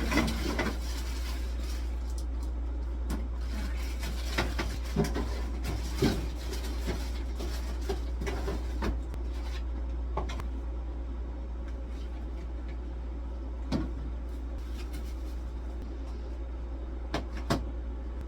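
Plastic fridge and freezer parts being handled and fitted, giving scattered sharp clacks and knocks, about a dozen of them, over a steady low hum.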